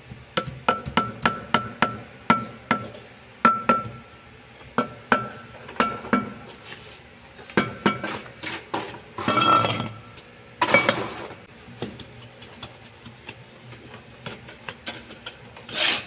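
Steel mason's trowel tapping hollow clay bricks down into their mortar bed: a quick run of sharp taps, several a second, each with a short ring. After a pause come two longer scrapes of the trowel working wet mortar over the brick, then lighter taps and scrapes.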